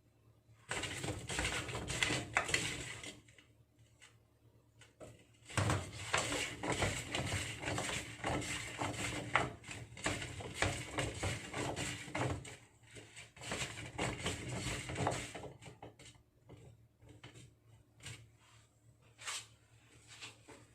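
Hands at work on a kitchen counter preparing food: rustling with small clicks and knocks, in a short stretch at the start and a longer one from about five seconds in to about sixteen seconds, then only scattered ticks.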